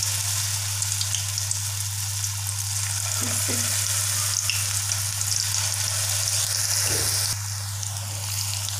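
Besan-battered pakoras deep-frying in hot oil in a kadhai: steady sizzling and bubbling, which thins a little near the end. A constant low hum runs underneath.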